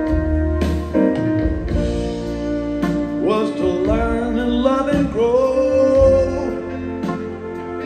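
Live rock band with horns and strings playing an instrumental passage over sustained chords. From about three seconds in, a lead line slides up and down in pitch.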